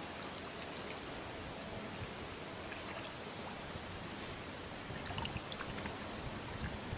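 Steady rush of flowing water, with a few faint ticks here and there.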